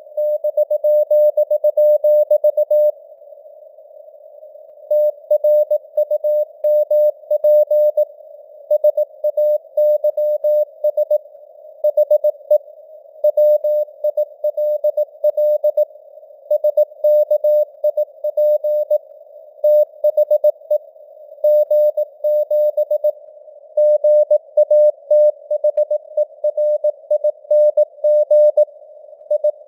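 Morse code sent at 18 words per minute: a single steady mid-pitched tone keyed on and off in dots and dashes, over a narrow band of simulated radio static. The keying stops for about two seconds a few seconds in, then carries on.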